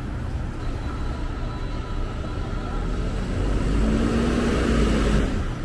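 A motor vehicle passing close by: a low engine rumble that swells over the last couple of seconds, with a steady hum at its loudest, then drops away suddenly near the end.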